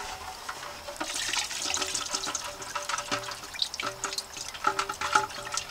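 Old gasoline pouring from the filler neck of a Honda pressure washer's plastic fuel tank and splashing unevenly into a bucket of fuel.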